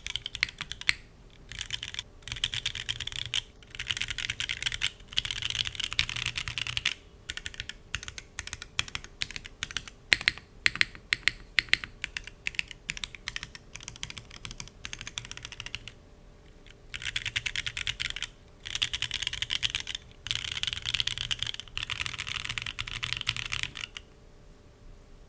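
Typing on an O-ring-mounted KBDFans Agar 60% mechanical keyboard: fast runs of keystrokes alternate with slower, separate key presses in the middle, and the typing stops near the end.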